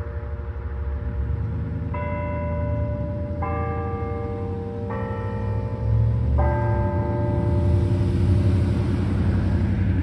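Church bells sounding a slow run of single notes of different pitch, a new one struck about every second and a half, each ringing on under the next, over a steady low rumble.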